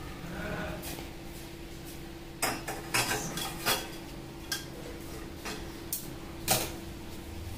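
Dishes and cutlery clinking and knocking together: a run of sharp clinks starting about two and a half seconds in and going on for some four seconds, over a steady low hum.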